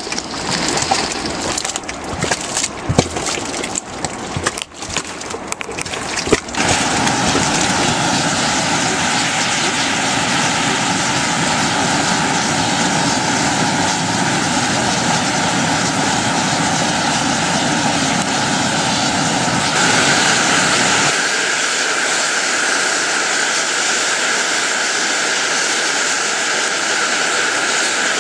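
Boiling mud pot plopping and gurgling irregularly for the first six seconds or so, then the loud, steady hiss of steam jetting from a fumarole. About twenty seconds in the hiss turns brighter and thinner.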